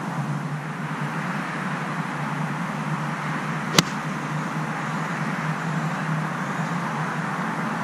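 A 7-iron striking a golf ball off the tee: one sharp, short click about four seconds in, over steady background noise.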